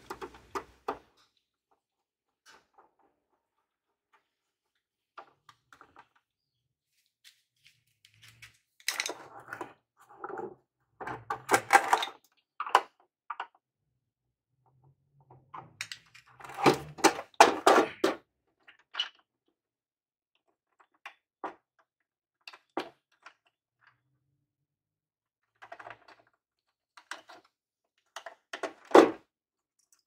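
B&D Controll-A-Door P garage door opener, its steel chassis and plastic housing knocking and clattering on a concrete floor as it is handled and turned over. The knocks come in several scattered clusters with quiet gaps, the loudest one near the end.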